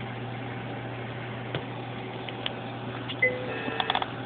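Steady low electrical hum and hiss of hospital equipment in a neonatal unit, with a faint click and, about three seconds in, a brief cluster of short high chirps and clicks.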